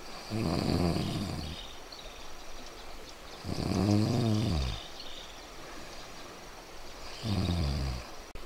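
A man snoring in his sleep: three low snores, each about a second long, coming every three to four seconds.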